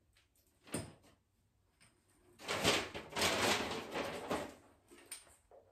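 Handling noise from shower parts: a sharp click about a second in, then about two seconds of rustling or scraping, then a couple of light clicks near the end.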